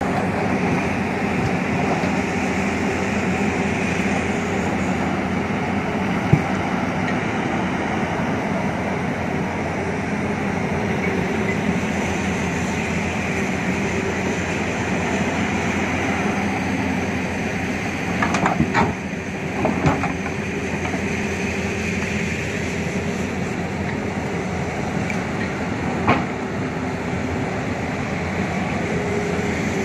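Tata Hitachi Zaxis 220 excavator's diesel engine running steadily under working load as it digs rock and earth, with a few sharp knocks and clanks scattered through, loudest in a cluster past the middle.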